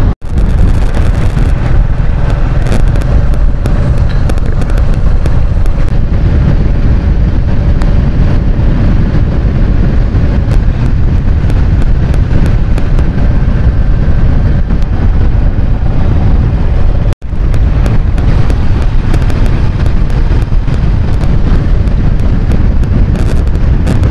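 Rumble of a vehicle moving along a road with heavy wind buffeting on the microphone and constant crackling pops. It cuts out for an instant twice, once right at the start and again in the latter part.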